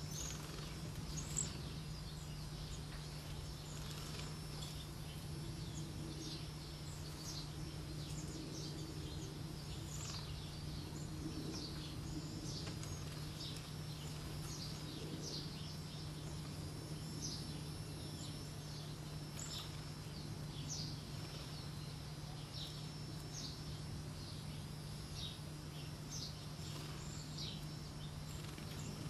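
Cedar waxwings calling: many short, very high-pitched notes, slightly falling, scattered throughout over a steady low hum.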